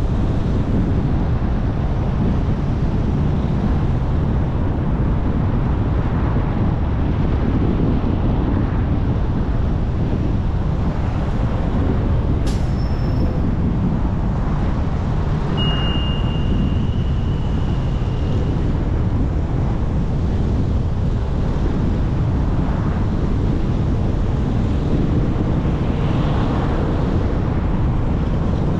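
Steady low rumble of road and wind noise from a car driving along. A click just before halfway, then a thin high squeal lasting about three seconds.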